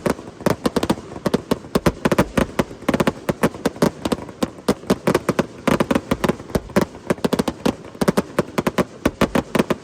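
Fireworks going off: a rapid, unbroken string of sharp bangs and crackles, several a second.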